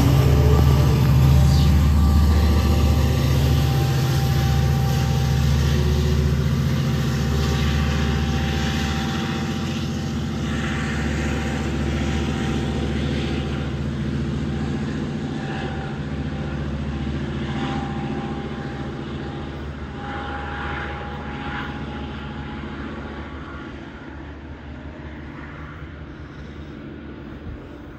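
Diesel train running by and slowly fading into the distance: a steady low engine drone that grows gradually quieter, with brief high squealing tones now and then in the middle.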